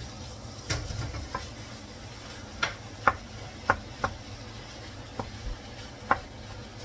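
Wooden spatula knocking and scraping against a metal skillet while stirring and breaking up ground beef: several sharp taps at uneven intervals.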